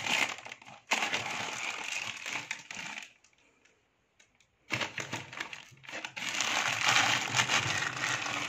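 Thin plastic bags lining the compartments of a wooden medicine box crinkling as a hand rummages inside them among dried herbs. There are two spells of crinkling with a short pause of about a second and a half around the middle.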